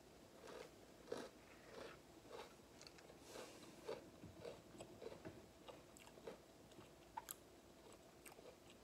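Quiet chewing of a chocolate Oreo sandwich cookie: soft crunches about twice a second, with a few sharper crunches near the end.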